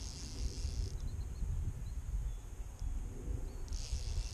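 Wind buffeting a GoPro microphone, a steady low rumble, by the water's edge. Twice, near the start and near the end, a high hiss lasting about a second comes over it.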